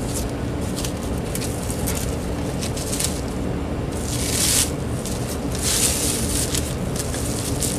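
Clear plastic wrap crinkling and rustling as it is pulled off a cordless phone base, in a few bursts, the loudest about four and six seconds in, over a steady low hum.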